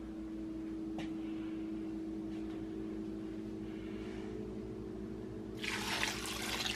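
A steady low hum, then near the end thick sauce poured from a bowl into a slow cooker, a short noisy pour of liquid.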